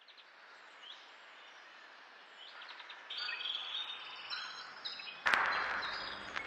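Short, high bird chirps and tweets over a soft background hiss, growing busier and louder about three seconds in. A louder, fuller sound comes in suddenly about five seconds in.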